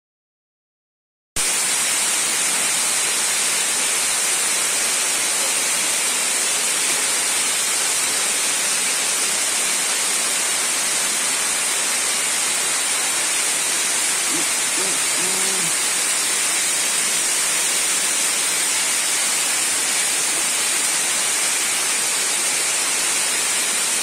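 Steady hiss of rushing water from a nearby waterfall, starting abruptly after about a second of silence, with a faint voice briefly in the middle.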